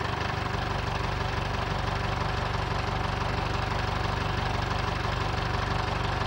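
An engine idling steadily with an even, rapid beat.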